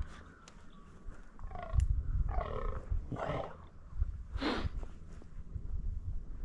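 Fallow deer buck croaking in the rut: about four short, guttural calls in quick succession, the last the loudest.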